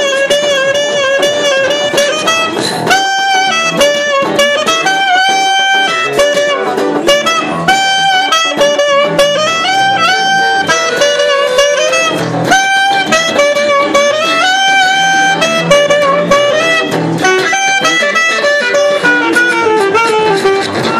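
Live saxophone playing a jazzy melody of held notes over electric guitar, with beatbox percussion clicking steadily underneath.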